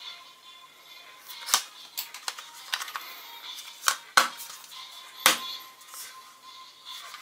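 Sharp plastic clicks and taps, about eight in all, as the hinged arms of yellow plastic Chococat toy glasses are folded and unfolded by hand; the loudest come about a second and a half, four and five seconds in. Soft background music underneath.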